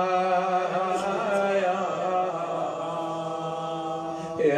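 Male voice chanting an Arabic elegy for Fatima al-Zahra, drawing out one long held note without words. A new sung phrase starts near the end.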